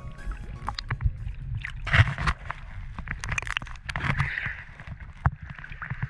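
Choppy sea water slapping and sloshing against a GoPro's housing held at the surface, with irregular splashes. The loudest surge of water comes about two seconds in and another around four seconds in.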